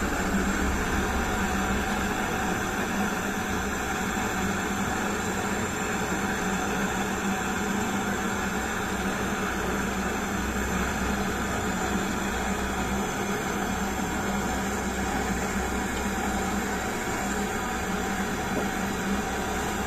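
Handheld gas-cartridge blowtorch burning steadily, its flame hissing as it heats a copper pipe joint on a refrigerator compressor, with a steady low hum underneath.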